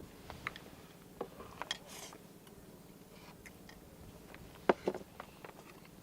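A person eating: quiet chewing with scattered light clicks of tableware, the two sharpest close together near the end.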